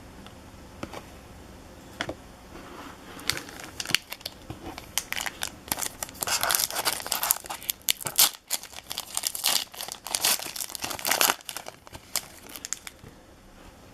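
A hockey card pack's wrapper being torn open and crinkled: a run of crackling rips and rustles that starts about two seconds in, is busiest in the middle and stops shortly before the end.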